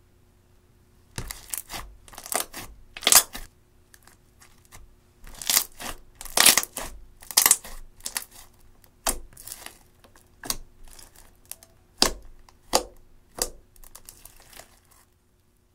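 Clear slime mixed with eyeshadow being squished and pressed by hand, giving a run of sharp, irregular crackles and pops with short gaps. It starts about a second in and stops near the end.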